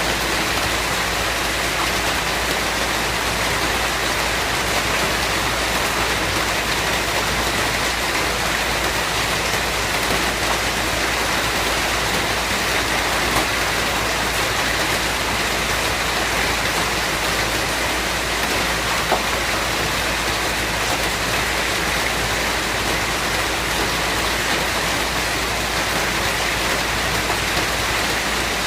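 Steady, continuous rain falling and pattering on surfaces, with scattered individual drop ticks.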